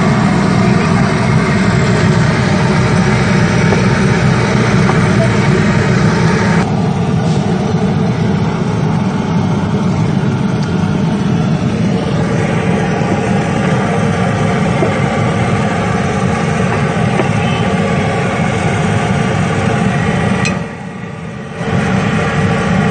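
Steady loud engine-like hum, with a brief drop in level about twenty seconds in.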